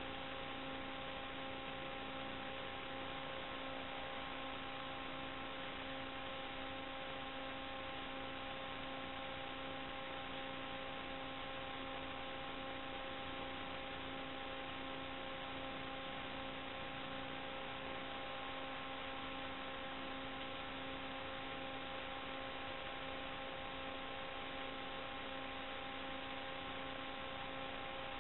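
Steady electrical hum over an even hiss: several fixed hum tones that never change, the noise on the audio track of an analog FPV video receiver's DVR recording, not the sound of the quadcopter itself.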